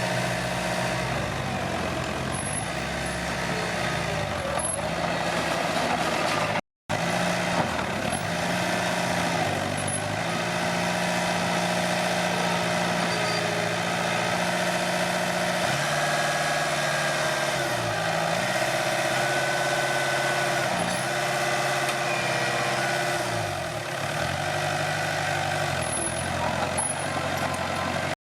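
Komatsu D21P bulldozer's diesel engine running under changing load, its pitch sagging and recovering several times in the second half. The sound cuts out for a moment about seven seconds in.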